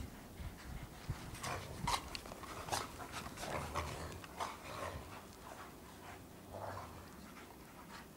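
Afghan hounds panting hard as they chase and play-fight, a quick irregular run of short breathy bursts that thins out over the last few seconds.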